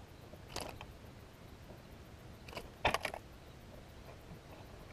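Faint handling sounds as a small bluegill is unhooked from a fishing lure: a few short clicks and rattles, the loudest cluster about three seconds in.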